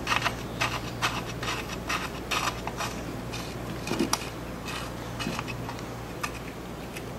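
Light metallic clicks and scraping of a neutral safety switch being threaded by hand into an aluminium transmission case, irregular and thinning out towards the end.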